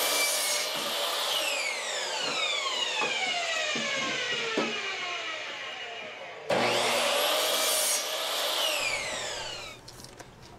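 Electric miter saw cutting boards twice. Each time the motor whines up to speed and the blade goes through the wood, then the whine falls slowly as the blade coasts down. The second run starts about two thirds of the way in and has died away near the end.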